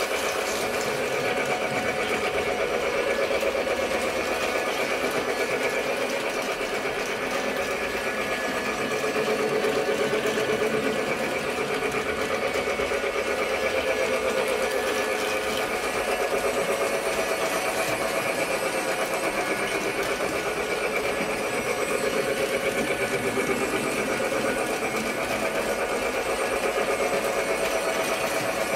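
Battery-powered Lionel toy train running steadily around plastic track: the small electric motor and gears whir continuously, with the wheels rattling over the track joints.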